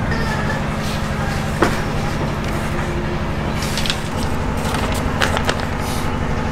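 A sheet of notebook paper crackling a few times as it is picked up and unfolded, over a steady low hum.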